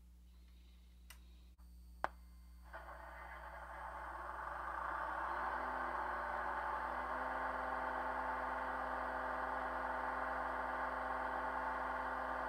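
An HO scale mechanical reefer's sound decoder plays a refrigeration genset through a Soundtraxx Mega Bass speaker. After two faint clicks, the genset sound starts about three seconds in, builds over a couple of seconds, then runs as a steady mechanical hum. It sounds like a genset air conditioner.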